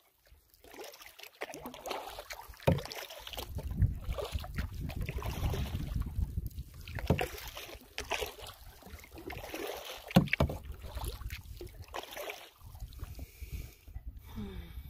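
Swift Solo Prospector canoe being paddled across a lake: water sloshing along the hull with paddle strokes and wind rumbling on the microphone. A few sharp knocks, the loudest about ten seconds in.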